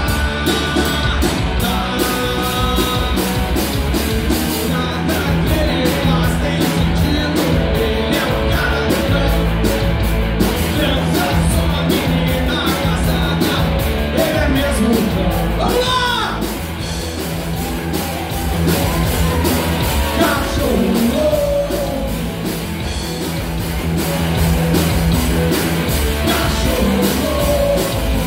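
Live rock band playing loudly: electric guitars, bass and drum kit, with a voice singing and yelling at times.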